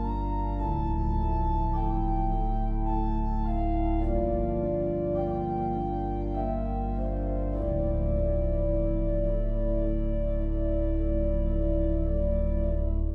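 Organ duet playing slow sustained chords over long-held deep bass notes, the chords changing every few seconds.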